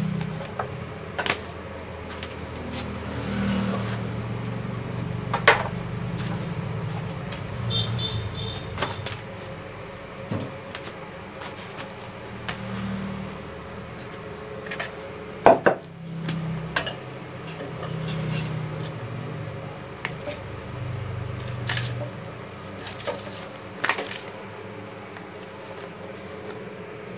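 Scattered knocks and light clatter of tools and a power cord being handled and set down, the two loudest knocks about five and fifteen seconds in, over a low uneven rumble.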